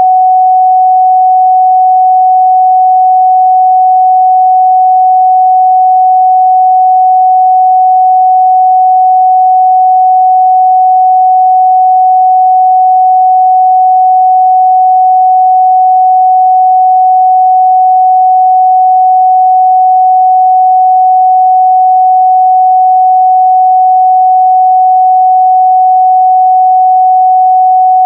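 A continuous 744 Hz sine-wave test tone, one pure pitch held steady at constant loudness.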